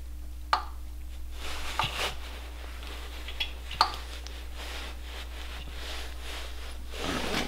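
Digital torque wrench being pulled on the head-stud nuts of an engine block: a few scattered sharp clicks over a faint steady hum.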